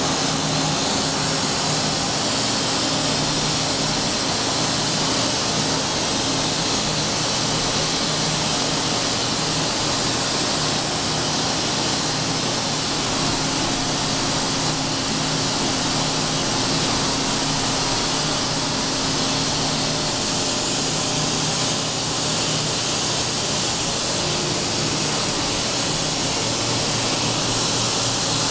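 Fadal VMC-4525 CNC vertical machining center running under power: a steady hiss with a low, even hum.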